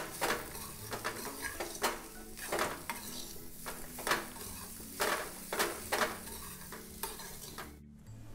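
A metal spoon stirring chopped raw mango pieces and spices in a steel pan, mixing the pickle with irregular clinks and scrapes about twice a second. It cuts off suddenly near the end.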